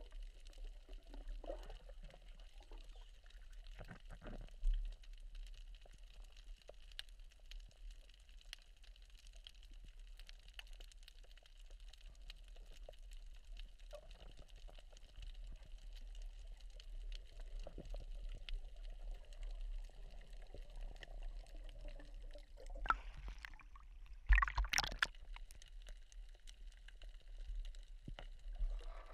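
Underwater ambience heard from a camera below the surface at a coral reef: a muffled, steady wash of water with scattered faint clicks. There are a few louder knocks, one about five seconds in and a cluster near the end.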